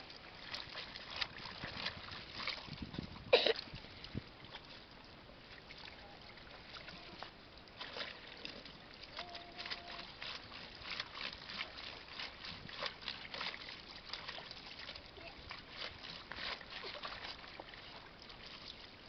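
Clothes being scrubbed and rubbed by hand in a plastic basin of soapy water: irregular wet splashing and sloshing. One sharp knock stands out about three and a half seconds in.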